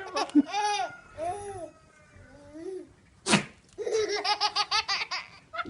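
A goat sneezes once: a short, sharp snort about three seconds in. People laugh around it, with a run of quick laughter right after the sneeze.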